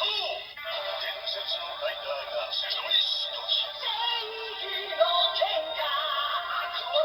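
DX Seiken Swordriver toy belt playing its three-book Legend transformation sound through its small built-in speaker: a sung, ethereal-sounding announcement with music over it.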